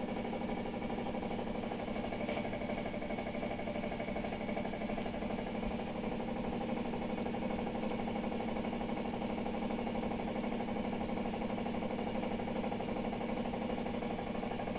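Electrolux LTR15 washing machine making an abnormal noise in its spin cycle: a steady mechanical hum made of many pitches at an even level, with a faint click about two seconds in. The cause of the noise is not yet known.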